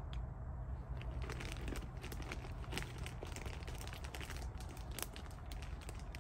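Small wood fire crackling inside a folding Bushbox metal stove, with many sharp pops and snaps scattered through it.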